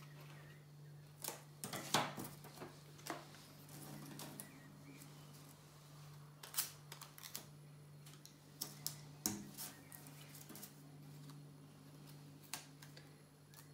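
Scattered light clicks and rustles of paper craft on a tabletop: scissors cutting paper sails near the start, then paper sails on paper drinking straws being handled and set down. A faint steady hum runs underneath.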